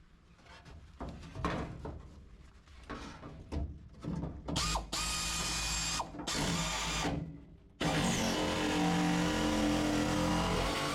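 Campbell Hausfeld air nibbler with a freshly replaced anvil and die, chattering rapidly as it punches through sheet steel. A few light knocks of handling come first, then about two seconds of cutting, a brief stop, and steady cutting again.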